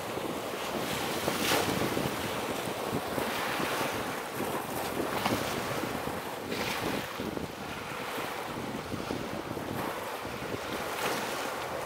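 Choppy sea waves washing and splashing in the shallows, with wind blowing across the microphone; a handful of waves break louder than the rest.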